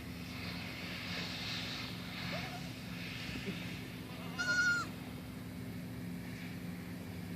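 Boer goat kid bleating once, a short high-pitched cry about halfway through.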